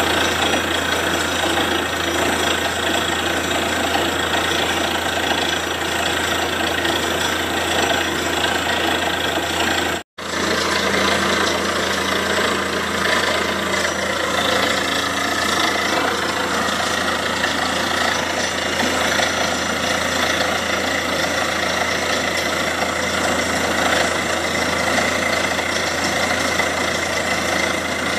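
Borewell drilling rig running steadily under load, its engine and drilling noise mixed with the rush of water and slurry blown up out of the bore: the bore has struck water, a flow the uploader puts at three inches. The sound cuts out for an instant about ten seconds in.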